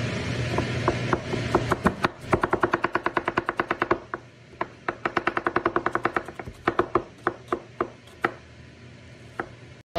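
Chef's knife rapidly slicing a red onion on a cutting board: quick, even knocks of the blade on the board, about eight a second, in two runs, with slower, scattered strokes before and after.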